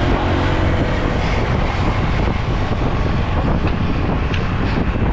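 Steady wind rush on the microphone of a camera moving at speed, with a few faint ticks.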